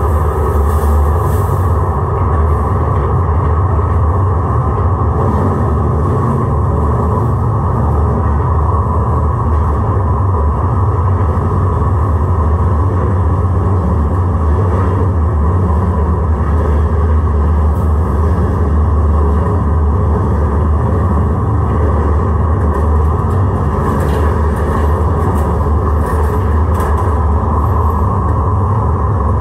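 Steady low rumble and hum from a 1983 Siemens-Duewag U2 light rail car standing still, its onboard equipment running without change.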